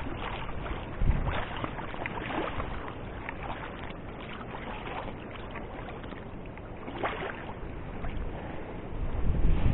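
River water lapping and wind blowing across the microphone, with scattered small clicks and rustles. Heavier low gusts hit the microphone about a second in and again near the end.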